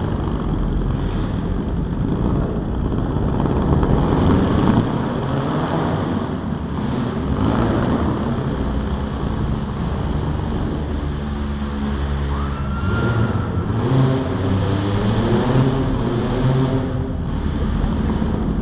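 Engines of compact demolition-derby cars running and revving, a steady loud engine din; a held, pitched rev stands out for a couple of seconds past the middle.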